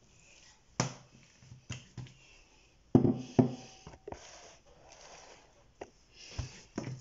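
Knocks and thuds of a mixing bowl and a ball of soft bread dough being handled and set down on a stone countertop, a few scattered taps and one louder thud about three seconds in.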